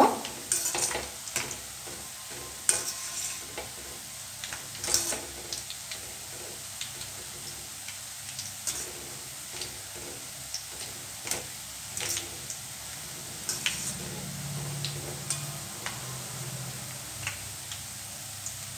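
Boondi (gram-flour batter drops) sizzling in hot oil in a stainless-steel kadai, with a perforated ladle scraping and clicking against the pan as it stirs them. The clicks are irregular and thin out in the second half, leaving the steady frying hiss.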